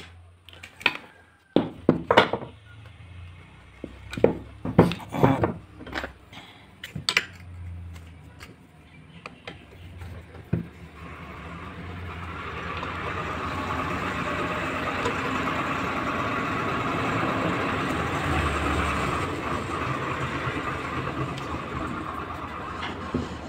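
Sharp metal clinks and knocks as a screwdriver works against the metal housing of a Globe electric hand planer being taken apart for a bearing change. About halfway through, a steady mechanical hum from an unseen source swells in and holds, louder than the faint tool sounds under it.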